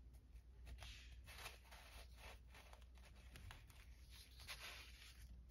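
Faint, soft rustling of an old comic book's aged paper pages as hands handle and separate its wraps, in a series of short brushing strokes.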